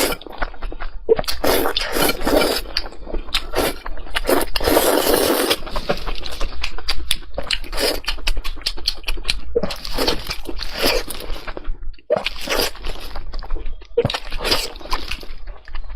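A person eating close to the microphone: irregular crunches and wet chewing clicks, with a longer rush of noise about four to five seconds in.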